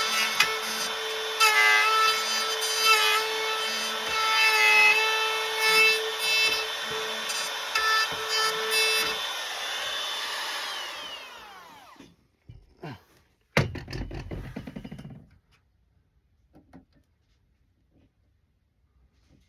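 Wood router running at full speed as it cuts a shallow latch recess into the edge of a sliding door through a jig, its steady whine brightening at moments as the bit bites. About nine seconds in it is switched off and spins down over a few seconds, followed by a single knock and some light clatter.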